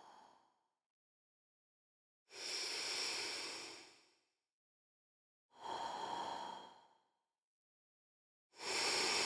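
Three long, breath-like whooshes of noise, each swelling and fading, separated by dead silence.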